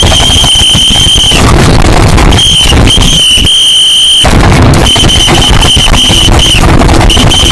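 Blaring, distorted noise with a shrill, steady high-pitched tone cutting in and out several times over it: a deliberately ear-splitting wake-up ringtone sound.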